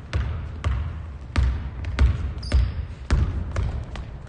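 A basketball being dribbled on a hardwood gym floor, about seven echoing bounces roughly every half second, with a short high squeak about halfway through.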